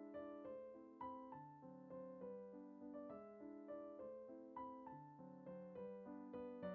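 Quiet background piano music: a gentle, unbroken run of single notes, each struck and fading.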